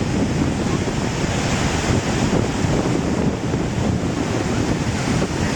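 Niagara Falls: the steady, unbroken roar of a huge mass of falling water, heaviest in the low range.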